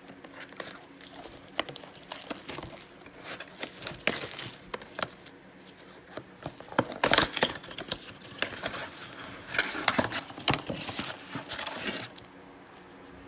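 A retail blaster box of trading cards being opened by hand: packaging and pack wrappers crinkling and tearing in irregular bursts, loudest about seven seconds in and again around ten to eleven seconds, dying down near the end.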